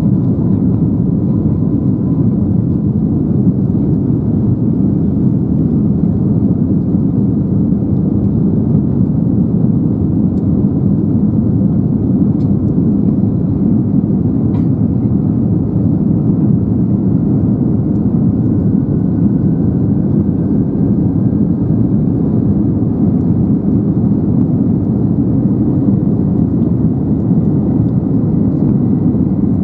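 Steady low rumble of an Airbus A321neo heard from inside the cabin as the airliner taxis, its engines running at low power. A faint whine rises slowly in pitch over the second half.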